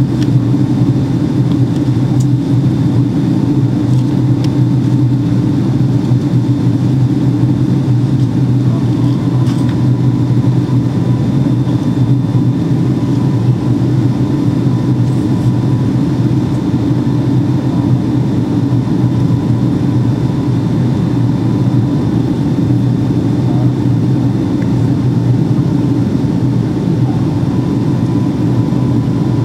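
Steady cabin noise inside a Boeing 757-200 on approach with its flaps extended: a loud, even low drone of engines and rushing air, with faint steady whines above it.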